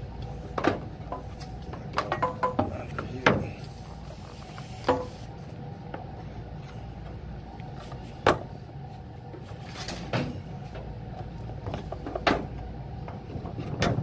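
Steady low hum of a running commercial HVAC unit, with scattered sharp clicks and taps as the solenoid coil's wires and cable are handled against the unit.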